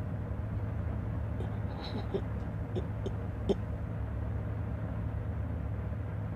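A steady low rumble, with a few faint short clicks scattered through it.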